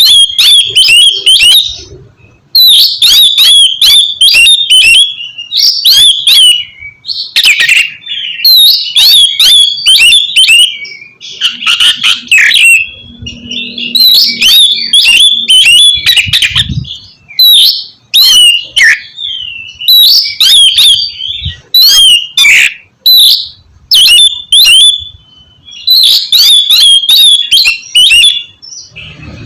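Oriental magpie-robin (kacer) in full, loud song: rapid, varied phrases of short whistles mixed with harsh, clicking scratchy notes. The phrases come in bursts of a second or two with brief pauses between them.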